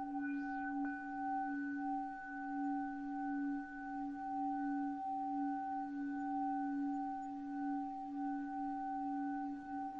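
Time-stretched ringing drone: several steady tones held together like a long-sustained bowl or bell tone, wavering gently in loudness.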